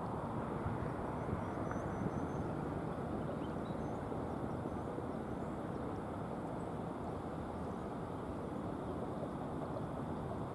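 Steady outdoor background noise, an even rushing hiss and rumble with no siren tone sounding.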